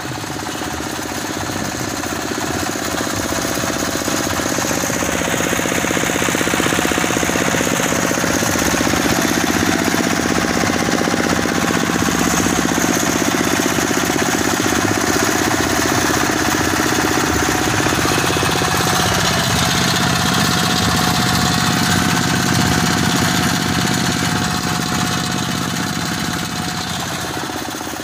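Stationary single-cylinder diesel engines running steadily, belt-driving the alternators of homemade generator rigs. The clattering engine sound grows louder over the first several seconds and eases off in the last few.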